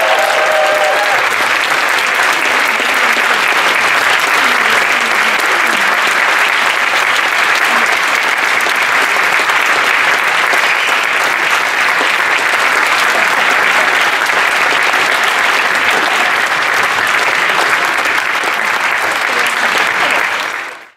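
Audience applauding steadily in a concert hall, cutting off suddenly at the end.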